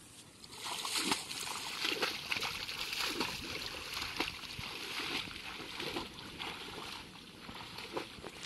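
Splashing and sloshing of someone wading through shallow, weedy floodwater, starting about half a second in, with irregular splashes from each step.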